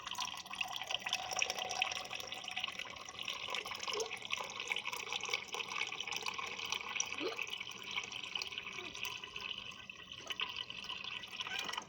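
Water running from a tap and splashing, shut off abruptly near the end.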